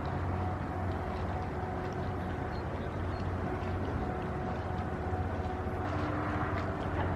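Inland cargo ship's diesel engine running with a steady low drone.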